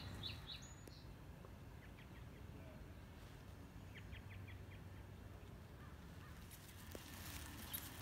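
Faint songbird chirps: a quick run of high notes right at the start, a few more about two seconds in, and a rapid series of four or five notes about four seconds in, over a steady low outdoor rumble. Near the end a rustling noise builds up.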